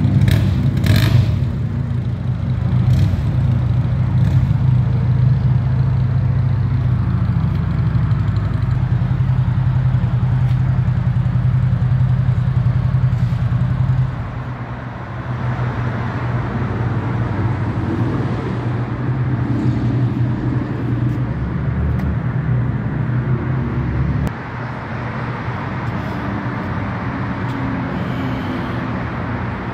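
Steady low rumble of vehicle engines running, its level and character shifting at about 14 and 24 seconds in.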